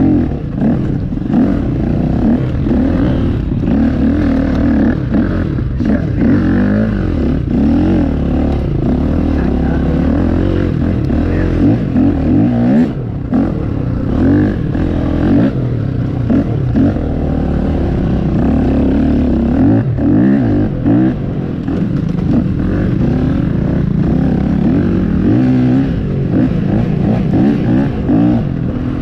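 Dirt bike engine revving hard, its pitch rising and falling again and again as the throttle opens and closes.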